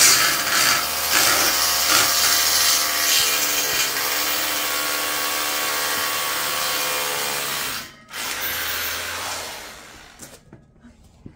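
Cordless drill running under load at the base of a metal railing post, drilling into the concrete for its anchors. It runs steadily with a wavering whine, stops about eight seconds in, runs again briefly, then dies away near the end.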